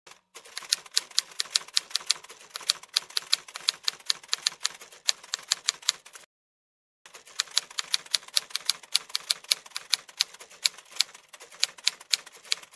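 Typewriter sound effect: a rapid run of key clicks for about six seconds, a pause of under a second, then another run of clicks.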